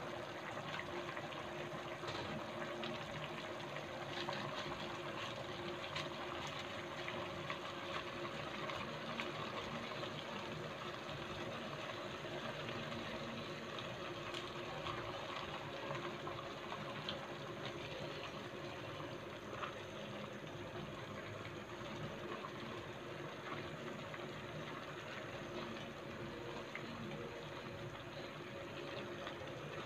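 A pot of chicken noodle soup boiling steadily under napa cabbage leaves, with a few faint clicks as a plastic spatula is pushed through the leaves.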